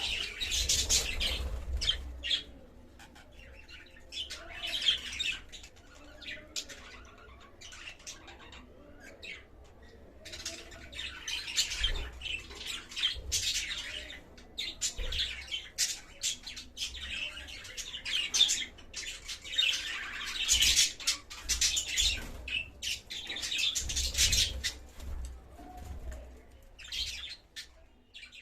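Budgerigars chattering and chirping, a busy warble of high calls that comes in bursts with short lulls between.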